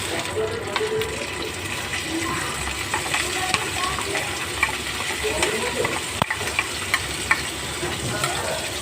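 Ginger, garlic and onion paste frying in hot oil, with a steady sizzling hiss. A spoon stirs the paste, scraping and clicking against the pan.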